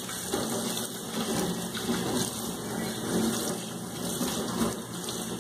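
Kitchen tap running steadily, the water splashing into and over an aluminium pan being rinsed in the sink.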